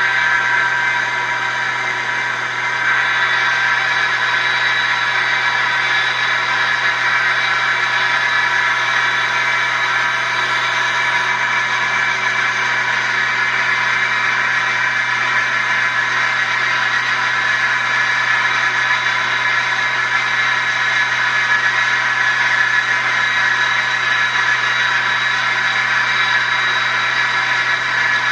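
CNC wood lathe running steadily: a constant machine whine made of several fixed high tones over a band of mechanical noise, dipping slightly about two seconds in.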